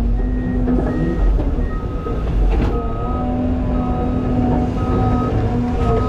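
CAT 323 excavator's diesel engine and hydraulics running under load, with tones rising and falling as it works. A backup alarm beeps about once a second over it.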